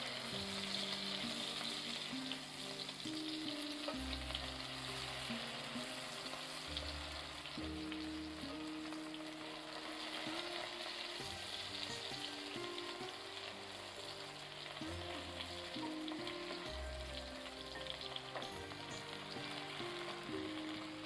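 Hot oil sizzling steadily as battered sturgeon pieces shallow-fry in a nonstick pan, with the pieces being turned over with a fork.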